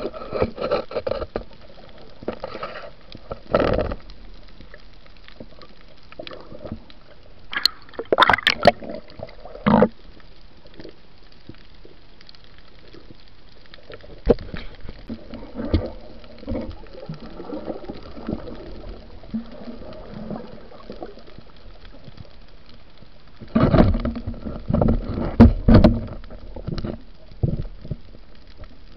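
Muffled water noise recorded underwater, broken by scattered knocks and thumps, with a louder stretch of heavy thumps and rushing water about four-fifths of the way through.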